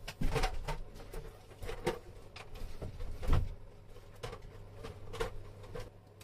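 Irregular knocks, clicks and rustles of objects being handled, with a heavier thump a little over three seconds in.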